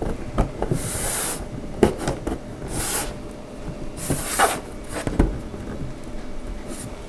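Furniture panel scraping and rubbing as it is pushed down into the grooves of a small cabinet, in several short scrapes, with a few light knocks of panel against panel.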